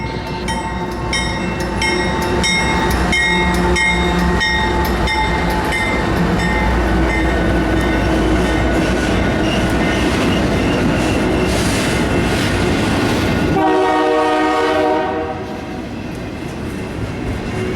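Union Pacific freight train passing close, its locomotive and wheels rumbling heavily while the air horn sounds, with a bell ringing rapidly over the first few seconds. About fourteen seconds in the rumble eases and a horn blast stands out clearly.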